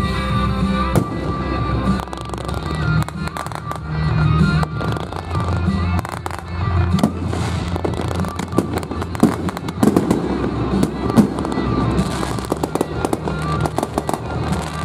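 Fireworks going off: many sharp pops and crackles from fountains and aerial shells, coming thicker in the second half, with music playing underneath.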